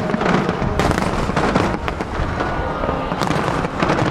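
Aerial fireworks going off in a continuous barrage: overlapping bangs and crackling over a low rumble, with sharper cracks now and then.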